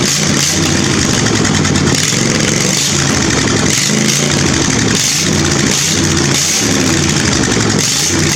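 Briggs & Stratton V-twin engine on a zero-turn mower running loud with the muffler removed, open exhaust, its speed repeatedly dropping and rising again about every second or so.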